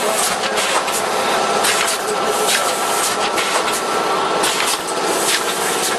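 Automatic suppository production line running: a steady mechanical noise with frequent irregular clicks and a thin steady whine.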